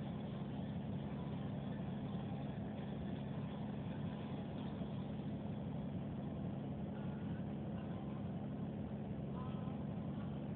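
A car engine idling, a steady low hum.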